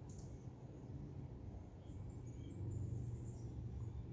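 Outdoor ambience: a steady low hum with faint, short high-pitched bird chirps now and then.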